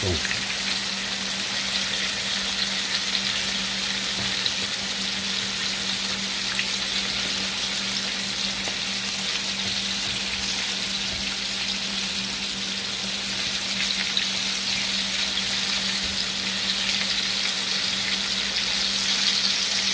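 Breaded chicken wings deep-frying in a wok of hot oil: a steady, dense sizzle of bubbling oil as the coating crisps. A faint low hum runs underneath.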